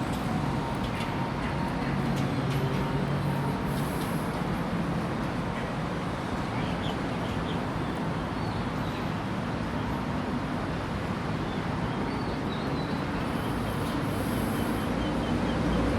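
Train running, a steady low rumble with hiss and a few faint high squeaks.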